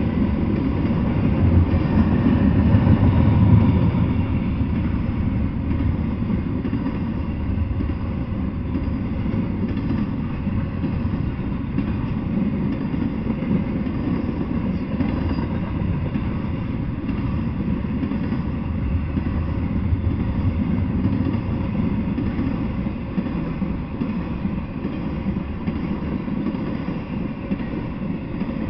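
Freight train of intermodal container cars rolling past: a steady rumble of wheels on the rails, loudest a few seconds in.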